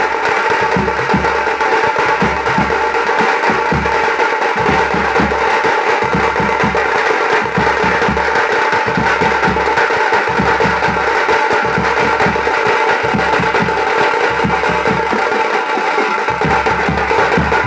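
A drum band playing together: several strapped-on side drums beaten with sticks in fast, dense patterns over the low booming strokes of a large bass drum.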